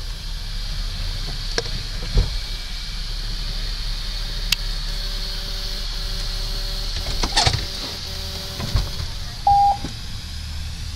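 Steady background of a car idling with its window down, with a few scattered clicks and knocks and one short electronic beep near the end.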